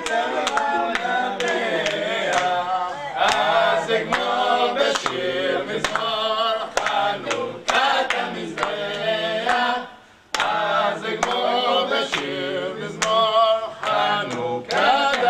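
A group of men and women singing together unaccompanied, with hand claps keeping time. The singing breaks off briefly about ten seconds in, then starts again.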